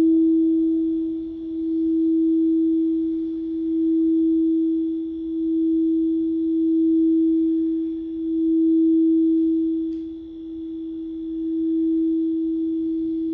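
Singing bowl sustaining one pure tone that swells and fades in slow waves, about every two seconds.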